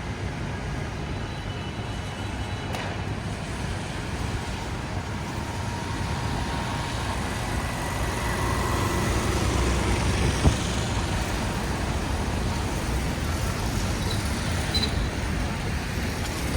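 City street traffic: vehicles passing in a steady wash of road noise that swells about halfway through, with one sharp knock just after that.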